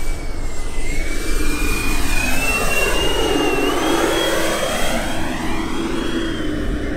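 Twin 120 mm electric ducted fans of a large RC Airbus A350 model on landing approach: a steady high whine that steps up slightly in pitch about three and a half seconds in, over a rush of air noise that swells toward the middle.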